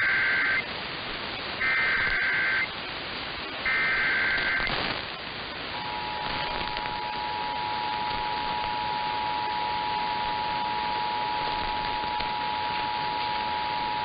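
Emergency Alert System header heard over AM radio static: three one-second bursts of SAME data tones near 1.5 and 2 kHz, encoding the start of a flash flood warning. A click follows, then the EAS attention signal, a steady two-tone alarm at 853 and 960 Hz, starts about six seconds in and holds over the hiss.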